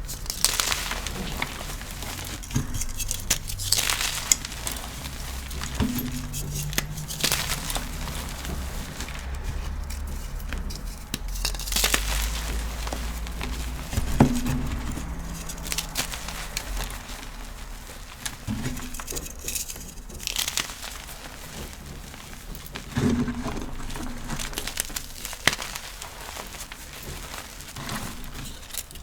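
Pressed chalk or cornstarch powder blocks being crushed and crumbled by hand: irregular crunches and crackles with a soft powdery hiss between them, and a few sharper, louder crunches scattered through.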